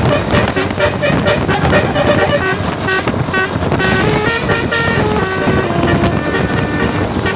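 A bus's telolet horn playing a quick tune of short notes that jump from pitch to pitch, several tones sounding together.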